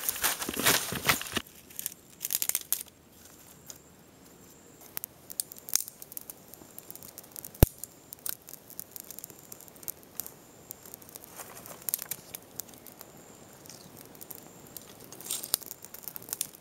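Dry palm fibre being torn and pulled from the base of a palm for tinder, rustling and tearing for the first few seconds. Then a small twig fire crackles softly with scattered small pops and one sharp click. Twigs rustle as sticks are added to the fire near the end.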